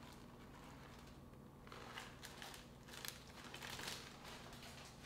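Faint rustling and crinkling of a thin plastic bag being handled, in a short flurry from a little under two seconds in to about four seconds in.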